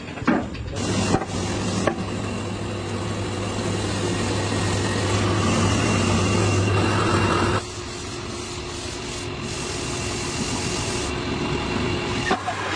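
Power sander running against wood: a steady abrasive rubbing over a low motor hum, which drops quieter a little past halfway through.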